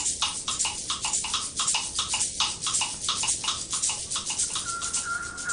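A rapid, even series of short animal calls or chirps, about four or five a second. Near the end a steady whistle-like tone joins in.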